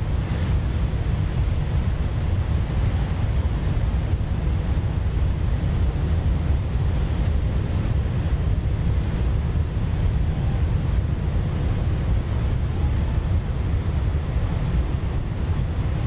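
Stock sound effect of stormy ocean surf with wind: a steady, deep rumble of breaking waves with no single crash standing out.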